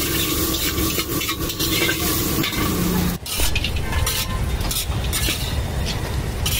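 Metal spatula stirring and scraping sabudana khichdi around a hot black kadai, with sizzling from the pan and repeated short clinks of metal on metal. The sound breaks off for a moment about three seconds in.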